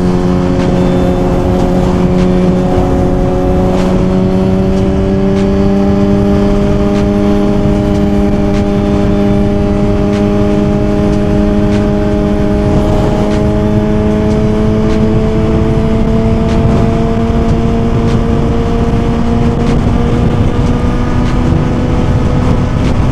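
2023 Suzuki GSX-R1000's inline-four engine running at a steady cruise, its pitch climbing slowly and evenly as the bike gently gains speed.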